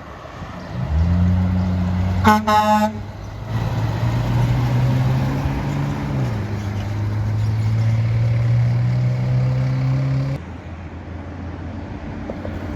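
A passing truck sounding its horn: a long low blast with a brief, brighter toot about two seconds in, then the low blast carries on, drops in pitch midway as the truck goes by, and cuts off suddenly near the end.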